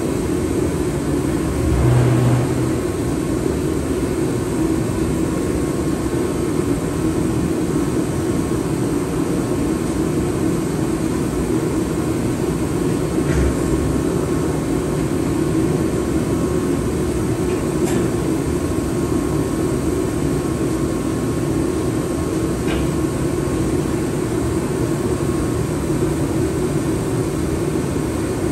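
Steady mechanical drone with a few faint knocks scattered through it.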